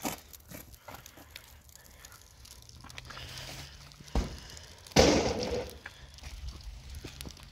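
Steel formwork panel dropped onto the ground: a low thud about four seconds in, then a sudden loud metallic crash about a second later with a short rattling tail.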